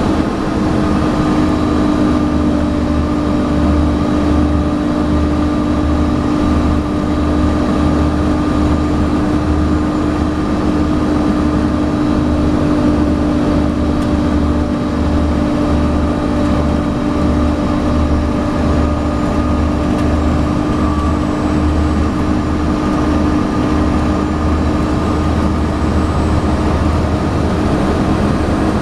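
Volvo B7TL double-decker bus's six-cylinder diesel engine running under steady load, with a steady whine over a pulsing low rumble: the vacuum-cleaner-like "hoovering" sound of this bus.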